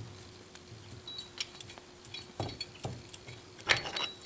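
Light metallic clicks and clinks of a milling machine's feed-screw assembly, with its ball-crank handle and bearing housing, being handled and turned as the left-hand-thread screw is unscrewed from the saddle. There are a few louder clinks in the second half.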